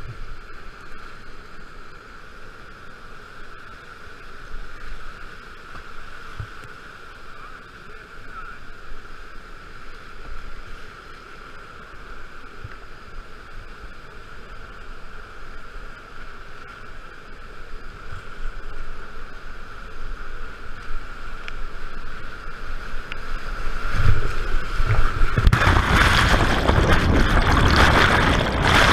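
Whitewater rapids rushing steadily around a kayak. From about two-thirds of the way in it grows louder, and for the last few seconds it becomes a loud churning rush as the camera is plunged into the river water.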